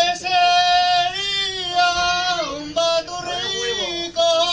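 A man singing solo without accompaniment, holding long, high notes that bend between pitches, with short breaths between phrases.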